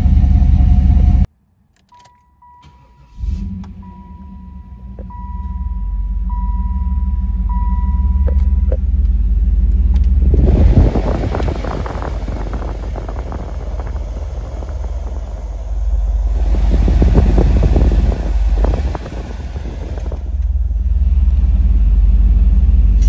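Inside the cabin of a 1995 Pontiac Firebird Formula Firehawk, a dashboard warning chime dings about once a second. Its 5.7-litre LT1 V8 starts about three seconds in. The engine then runs with a deep rumble that swells louder from about ten seconds in and again a few seconds later.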